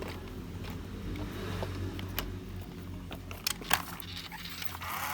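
Plastic toy vehicles being handled: light clicks and rattles, with a couple of sharper knocks about three and a half seconds in and a brief scrape near the end, over a steady low hum.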